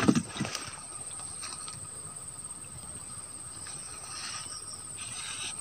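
Insects chirring in the grass: a steady, unbroken high-pitched drone, with a few faint scuffs of handling.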